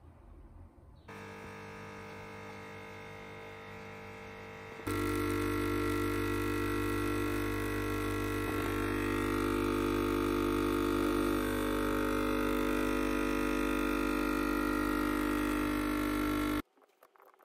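A steady, droning electric motor hum that starts about a second in, steps up to a louder setting about five seconds in, and switches off abruptly shortly before the end.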